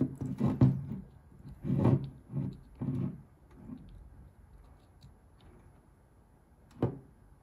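A man's low, wordless mumbling for about the first three seconds, then quiet handling with one sharp click near the end.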